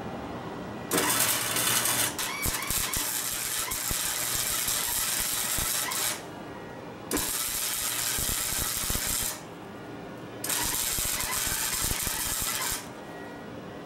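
Wire-feed welder arc crackling as a steel exhaust pipe is welded, in three runs. The first lasts about five seconds, starting about a second in; the next two last about two seconds each, with short pauses between them.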